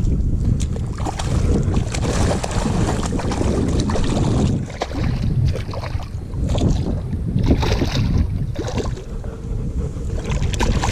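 Wind buffeting the microphone in uneven gusts, a heavy rumbling noise that eases briefly about five seconds in.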